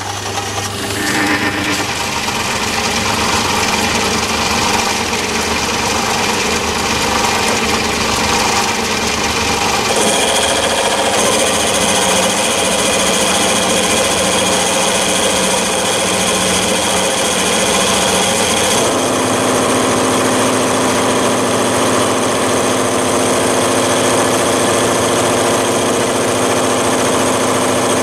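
Metal lathe running and turning down an annealed steel cold chisel, the cutting tool going over the chisel's flats in an interrupted cut that makes a little bit of noise. The steady machine tone shifts about ten seconds in and again just before twenty seconds.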